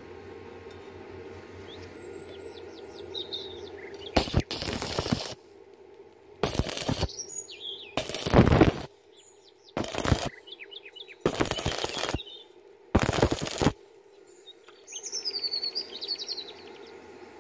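Stick electrode arc welding on thin square steel tube: the arc crackles in six short bursts of under a second each, struck and broken again in turn so the thin wall does not burn through. Birds chirp in the pauses.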